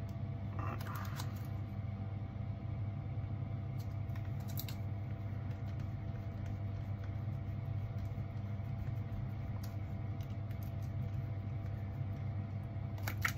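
Small clicks and taps of a precision screwdriver and tiny screws against an iPod classic's metal casing while screws are driven in: a cluster about a second in, another around four and a half seconds, and one just before the end. Under them runs a steady low background hum.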